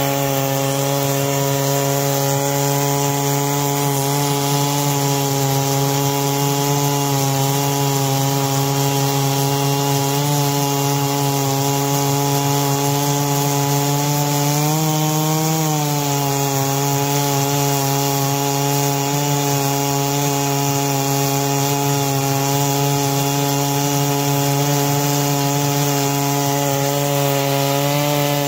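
Stihl MS660 two-stroke chainsaw held at full throttle in a chainsaw mill, ripping lengthwise through a pecan log under steady load. The engine note holds steady, picking up speed briefly about halfway through before settling back.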